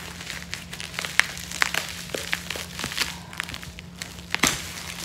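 Bubble wrap and plastic packing being handled and pulled from a shipping box: irregular crinkling with scattered crackles and small taps, sharpest about a second in and again near the end.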